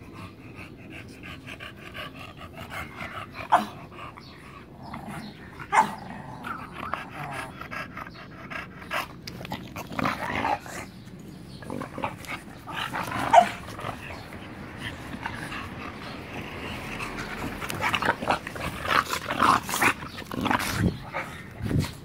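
Small dogs growling as they play-fight, while the person filming hiccups sharply several times.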